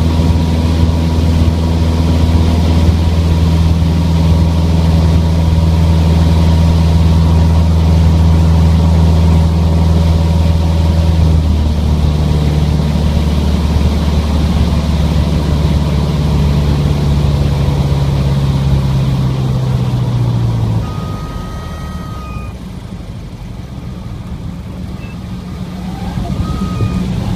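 Cockpit sound of a 1977 Cessna 150 Aerobat's four-cylinder Continental O-200 engine and propeller running steadily in a spin, the pitch shifting about eleven seconds in. About twenty seconds in the engine quits, which the pilot puts down to fuel starvation from a light fuel load thrown to the outside of the tanks, and only airflow noise is left, growing louder near the end.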